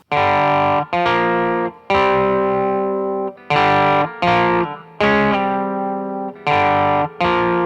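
Electric guitar chords played through an Ibanez TSA15H tube amp with its built-in Tube Screamer on, overdrive all the way down, giving a lightly driven tone. The chords are strummed and rung out in short hits, each cut off before the next.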